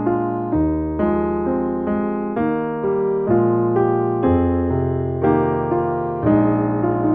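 Piano playing slow chords, a new chord struck about once a second and left to ring and fade.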